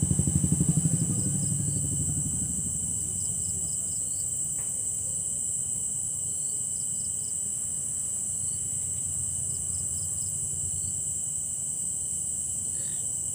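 Steady nighttime insect chorus, crickets trilling in a constant high-pitched drone with small repeated chirps. A low pulsing rumble is loudest in the first couple of seconds, then fades.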